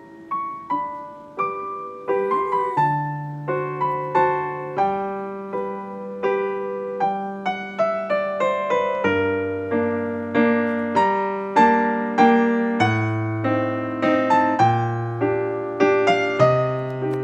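Background music: a gentle solo piano piece, notes struck one after another over held bass notes.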